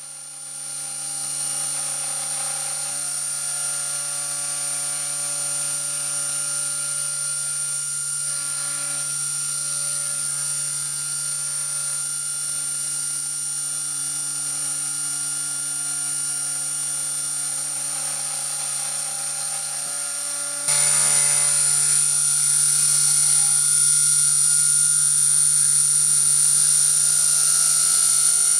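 A CNC 3018 mini router's spindle motor running with a steady high whine and low hum while its end mill cuts a pocket into multiplex plywood. About two-thirds of the way through it suddenly gets louder.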